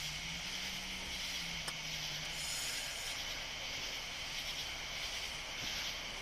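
Steady night chorus of crickets and other insects, a high continuous buzzing, over a low steady hum that drops out for a while past the middle.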